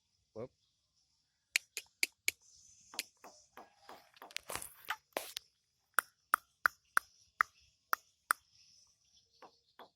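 Javan myna giving a run of sharp clicking calls, roughly two to three a second, with a short rasping, cough-like burst near the middle.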